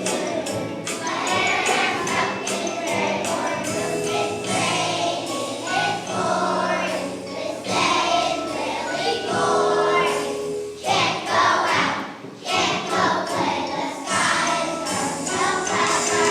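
A group of young children singing a song together over instrumental accompaniment, with a steady beat of jingling percussion.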